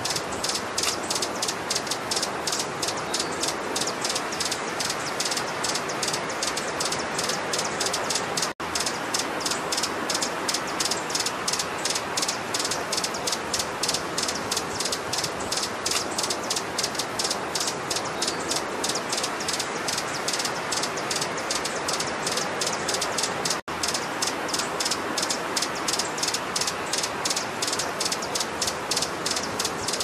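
Hummingbird calling: a fast, even series of high, buzzy chips, about five or six a second, cutting out for an instant twice.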